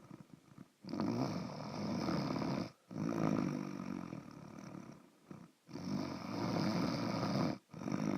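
Snoring in slow, regular breaths: three rattling stretches of about two seconds each. The first two run almost together, and a pause of about a second comes before the third.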